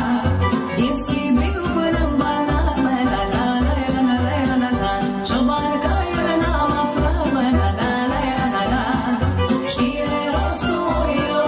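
A woman singing a Romanian folk song into a microphone over amplified instrumental accompaniment with a steady bass beat.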